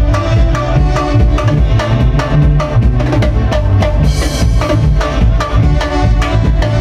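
Live band playing an instrumental passage: keyboards over a steady drum and percussion beat with a strong bass line, and a cymbal crash about four seconds in.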